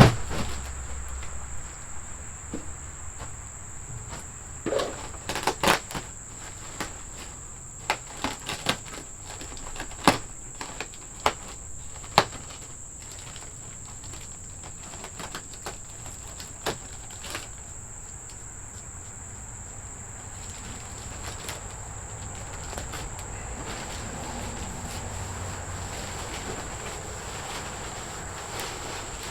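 Steady high-pitched drone of an insect chorus, with a run of scattered knocks and clatter partway through.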